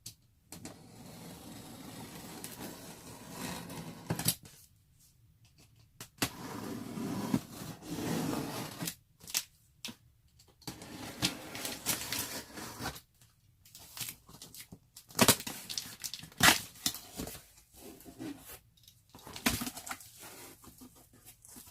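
Cardboard box being opened by hand: stretches of tearing and scraping of the cardboard packaging, broken by several sharp knocks and clicks, the loudest a little past the middle.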